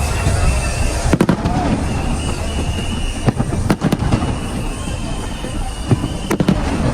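Fireworks display: aerial shells bursting with sharp bangs, several coming in quick pairs, over a continuous low rumble and crackle from the ongoing barrage.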